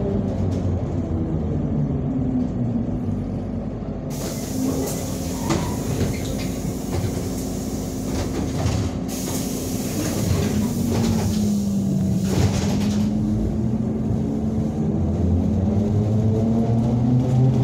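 ZiU-682 trolleybus heard from inside the cabin, its traction motor whining as it runs: the pitch falls as the trolleybus slows, holds steady, dips again about twelve seconds in, then rises as it speeds up again. A hissing noise joins about four seconds in and stops about thirteen seconds in.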